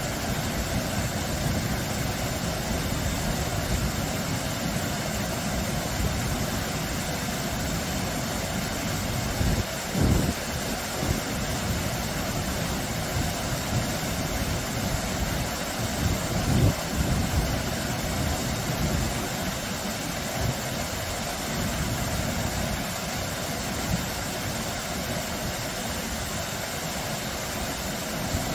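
Small, low waterfall splashing over boulders into a shallow pool: a steady rush of falling water, with a deep rumble under the splashing. It swells briefly louder twice, with low thumps about ten and seventeen seconds in.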